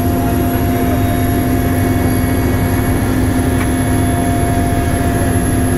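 Steady cabin noise of a Mi-8MTV-1 helicopter in flight, heard from inside the cockpit: a loud low rumble from the rotor and twin turboshaft engines, with a constant whine over it.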